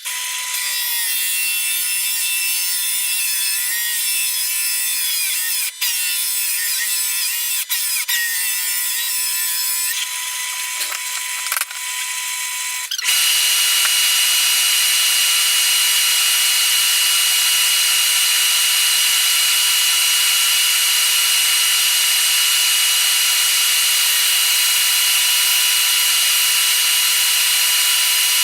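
Electric power tool cutting plugs from a piece of oak, its motor whining at high speed. For the first half the pitch wavers with a few brief dips as it bites into the wood; about halfway through it becomes louder and runs at a steady pitch.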